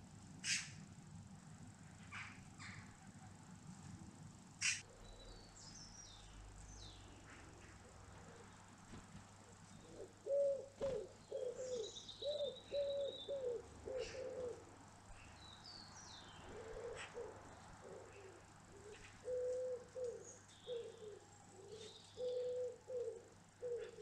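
A pigeon cooing in two runs of low, evenly spaced notes, the first starting about ten seconds in and the second a few seconds later, over scattered high chirps of small songbirds. Two sharp clicks come in the first five seconds.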